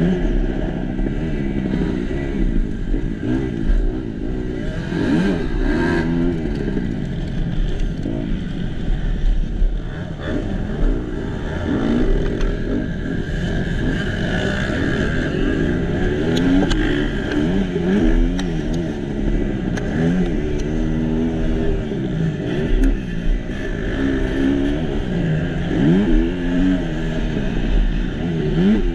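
Onboard sound of a Kawasaki 250 KX-F motocross bike's four-stroke single racing, the engine pitch climbing and dropping over and over as the rider accelerates, shifts and backs off for corners, with other motocross bikes running close by.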